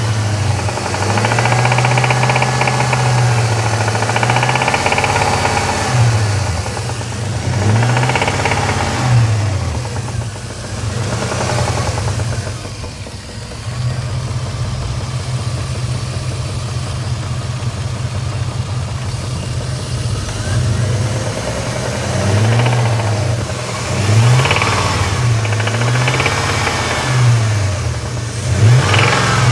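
Jeep Grand Cherokee WJ 4.7-litre V8 being revved, held high at first, then several rev blips, a steady idle in the middle and more quick blips near the end. It has an engine knock that the owner thinks may mean pulling the engine out to fix.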